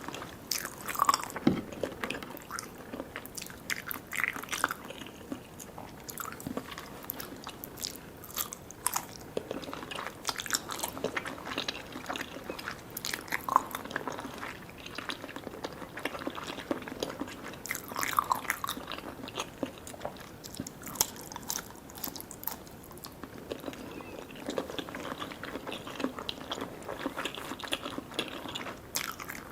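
Close-miked eating: chewing on soft, sticky desserts, with wet, sticky mouth clicks and smacks coming irregularly.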